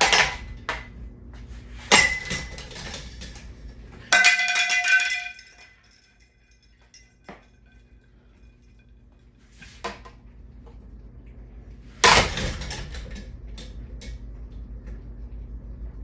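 A ceiling fan being smashed: metal bangs and clanks, with a ringing metallic clang about four seconds in that rings for about a second. A quiet stretch with small ticks follows, then a heavy bang about twelve seconds in that dies away.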